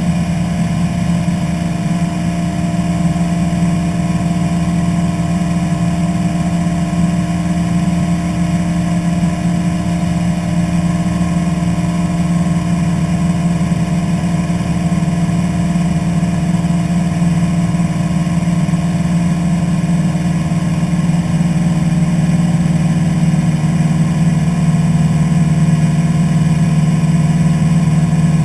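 Single-engine light aircraft's piston engine and propeller running steadily in flight, a constant drone heard from inside the cockpit, growing slightly louder near the end.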